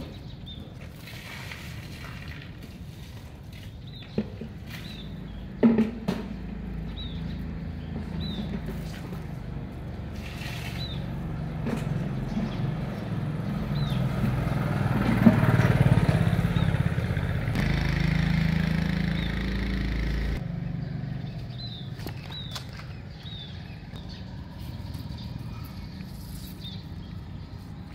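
Outdoor street background: a motor vehicle rumbling past, swelling to its loudest about halfway through and cutting off abruptly a few seconds later. Short high chirps come and go throughout, and two sharp clicks sound early on.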